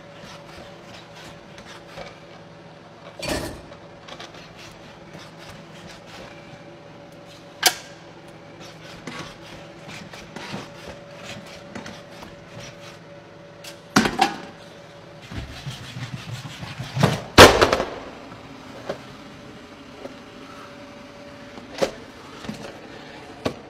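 Four-legged robot running with a steady electric hum, with clicks, clanks and knocks from its joints and arm. A few louder crashes come at intervals, the loudest cluster a little past the middle.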